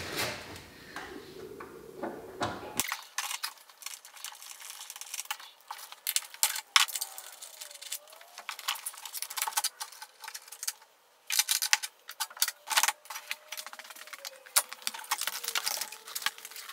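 Metallic clinking, rattling and quick clicks and knocks of hand tools and loose fittings as car interior parts are unbolted and pulled out. About three seconds in the sound changes abruptly and from then on it is thin, with no bass.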